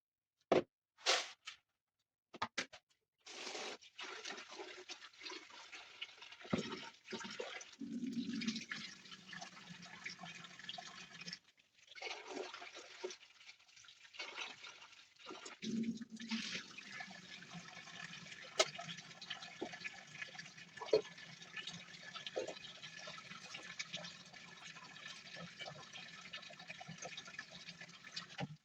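Water running steadily, with occasional small knocks and clicks. It breaks off briefly twice around the middle.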